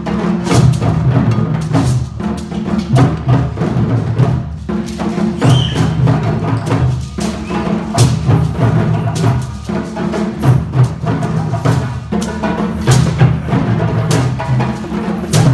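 A group of African hand drums, djembes, playing together in a dense, steady rhythm, with deep bass tones and sharp slaps.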